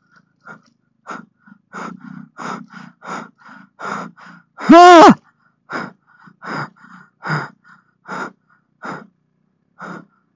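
A frightened rider breathing hard in quick, short gasps about twice a second, with one brief cry about five seconds in that rises and falls in pitch and is the loudest sound.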